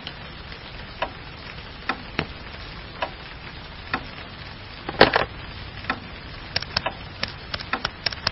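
Wall clock ticking about once a second. About five seconds in, a louder clatter as the desk telephone handset is lifted, then a quick run of clicks as the number is dialled on the phone's buttons.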